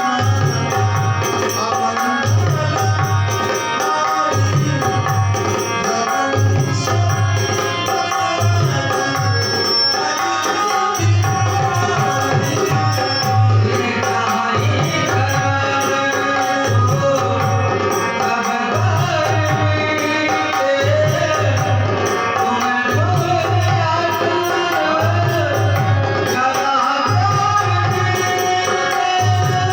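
Dholak playing a steady rhythm of deep bass strokes under a sustained melody in devotional music.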